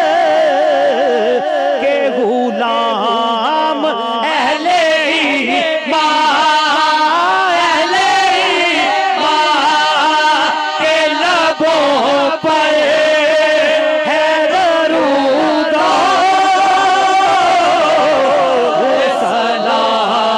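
A man's voice singing a naat, an Urdu devotional poem in praise of the Prophet, through a microphone and PA, in long held notes ornamented with wavering turns.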